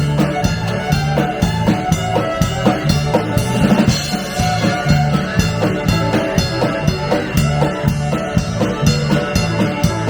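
Band music with drums and guitar playing a steady beat.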